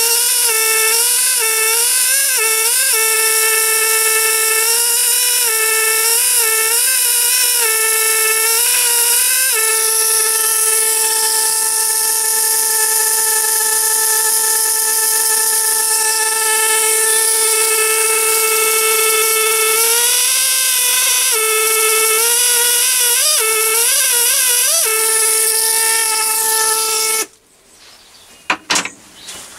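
Hand-held pen-style engraving tool running with a steady high whine; its pitch dips and wavers in groups as the bit is pressed into aluminium to engrave lettering. It cuts off near the end, followed by a few light clicks.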